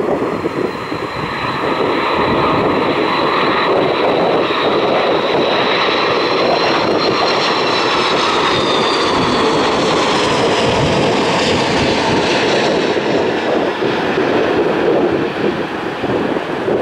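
Jet airliner flying past, its engine whine creeping up in pitch, then falling and fading about three-quarters of the way through, over heavy wind noise on the microphone.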